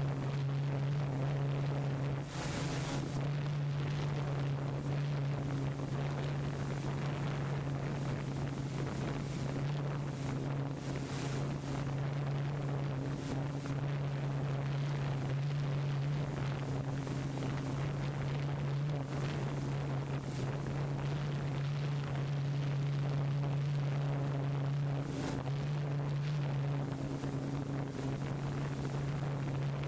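Wind noise on the microphone over a steady low two-note hum, with brief gusts about two, eleven and twenty-five seconds in.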